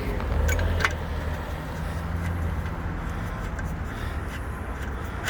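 A low, steady vehicle engine rumble that fades out after a few seconds, with a couple of light metal clicks about half a second to a second in, typical of a screwdriver turning a screw out of a lock.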